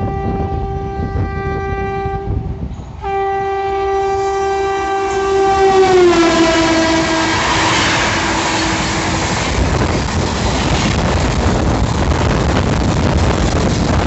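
WAP-7 electric locomotive's horn sounding twice: a short blast, then a longer one whose pitch drops as the locomotive passes. After that the coaches run by close with steady wheel and rail noise.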